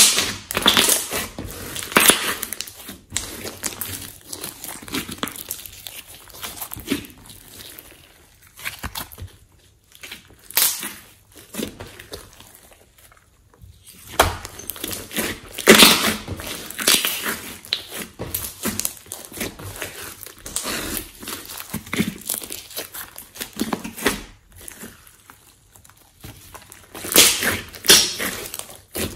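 Hands squeezing, pressing and stretching a large lump of glossy slime, giving irregular wet squelches, crackles and pops. The louder bursts come near the start, about 2 s in, about 16 s in and again near the end.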